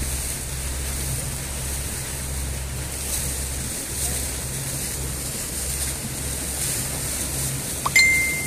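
Motorboat engine humming steadily under way, with wind and water rushing past. Near the end comes a sharp click and a short high beep.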